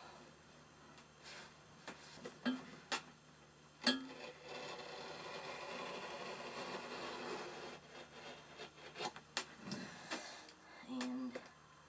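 A razor knife drawn through heavy felt along a straight edge: a rasping cut of about three seconds, with scattered clicks and taps of the tools being picked up and set down before and after.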